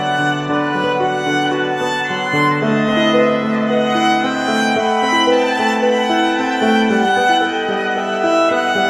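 Instrumental passage of a slow song between sung lines: long held notes moving in slow chord changes, the lowest notes dropping out about five seconds in.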